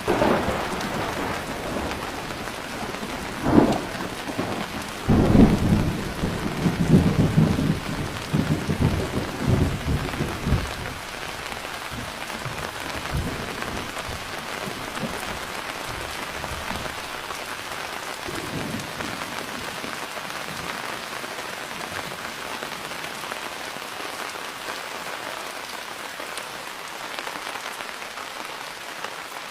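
Steady rain with thunder: a sharp clap about three and a half seconds in, then a rolling rumble for about five seconds, fading to fainter rumbles, while the rain goes on.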